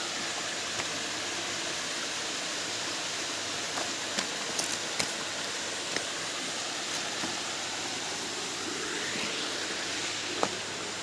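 Waterfall, a steady, even rush of falling water, with a few faint clicks and taps about halfway through and near the end.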